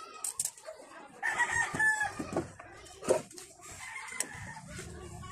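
A rooster crowing once, about a second in, with a few sharp clicks and knocks around it.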